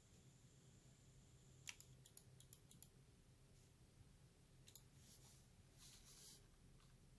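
Near silence with a low steady hum, broken by a few faint, scattered clicks from the Royal Kludge RK61 Pro mechanical keyboard: a cluster of light clicks about two seconds in and another pair near five seconds, then a soft rustle just before typing starts.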